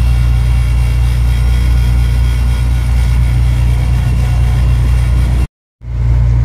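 Ferry's engine running with a steady low drone, heard from the open deck. The sound drops out abruptly for a moment near the end, then resumes.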